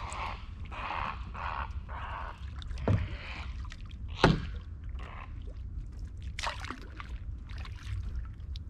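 Canoe paddling: the paddle dipping and pulling through the water with quick splashes and drips. Two sharper knocks about three and four seconds in stand out as the loudest sounds, over a steady low rumble.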